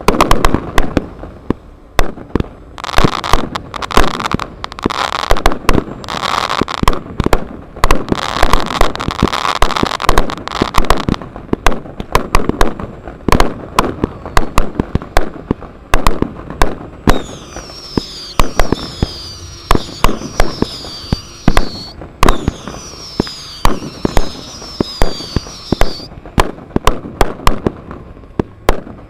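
Pyrotechnic charges and firecrackers bang off in rapid, irregular succession to stage a mock battle, densest in the first third. About halfway through, a long run of repeated falling whistles sounds over the bangs for several seconds.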